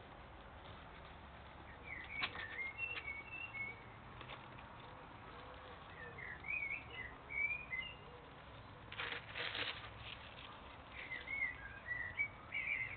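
A songbird singing three short bursts of warbling phrases, with brief scratching and rustling bursts as ferrets dig in soil and grass; the loudest scratching comes about nine seconds in.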